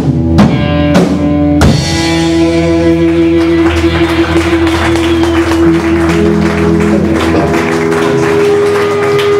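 Instrumental rock band with electric guitar, bass guitar and drums playing together. Three hard accented hits come in the first two seconds, then held guitar notes ring over a sustained bass note.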